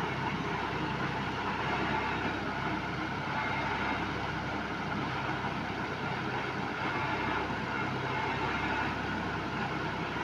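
An engine running steadily, an even drone with no change in speed.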